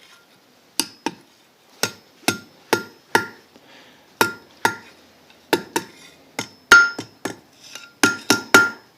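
A blacksmith's hand hammer striking hot quarter-inch round steel on an anvil in an irregular series of blows, each with a short metallic ring, as the end is hammered down and curled over. The blows come in quick pairs and runs, with a short pause a little past three seconds, and hit harder in the second half.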